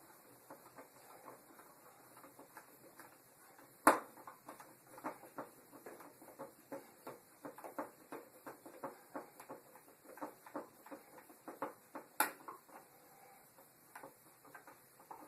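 Screwdriver driving a light switch's mounting screws into the electrical box: a run of small, irregular clicks and creaks from the turning screws, with two sharper clicks about 4 s and 12 s in.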